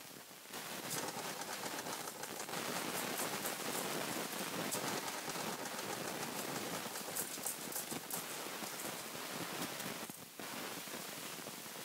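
Plastic roller ball on the roof of a Fisher-Price Laugh & Learn Puppy's Activity Home turning on its rod: a steady rattling patter of many small clicks that drops lower after about ten seconds.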